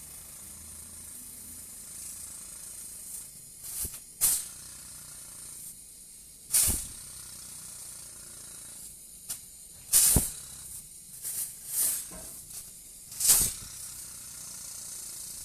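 Refrigerator compressor running with its discharge pipe disconnected: a steady hiss of gas escaping from the open line, broken by several loud spurts as it blows out compressor oil.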